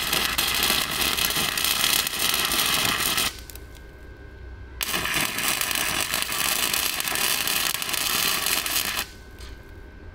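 MIG welding arc crackling in two runs: the first stops about three seconds in, and the second starts a second and a half later and stops about nine seconds in.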